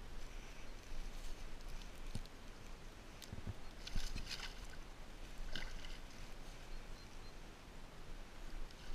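Pike splashing in shallow water at the bank as it is released and kicks away: a few short splashes around three to four and a half seconds in, and one more a little later.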